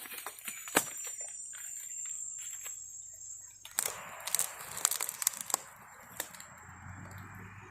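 Handling noise of scattered sharp clicks and knocks, with soft rustling from about four seconds in, as a freshly caught wild bird is taken out of the trap. A thin steady high insect drone sounds during the first few seconds.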